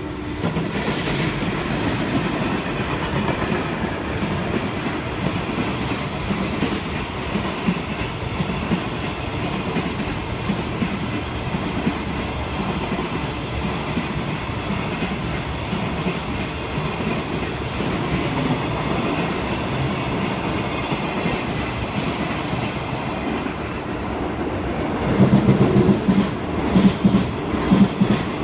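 Steady rumbling noise of a moving vehicle. About 25 seconds in it grows louder, with a rhythmic clatter.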